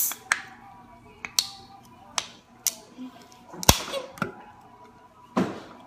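Fingernail clicking and prying at the pull tab of an aluminium Coca-Cola can: several sharp separate clicks, one louder pop about two thirds through, and a brief burst of noise near the end.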